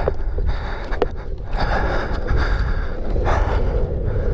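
Rider's heavy, winded breathing, several loud huffs, over the continuous low rumble of longboard wheels rolling on pavement.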